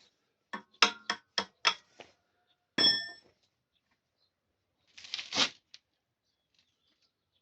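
A quick run of about five hard clicks or clinks, then a single bright metallic ding, and a short rattle a couple of seconds later.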